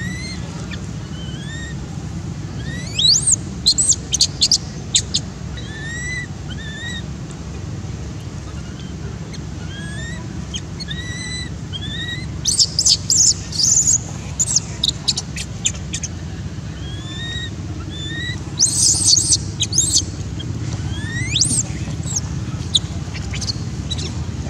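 Baby long-tailed macaque whimpering in short, arched rising-and-falling coos, repeated every second or two. Three bursts of shrill high chirps break in: a few seconds in, about halfway, and again later.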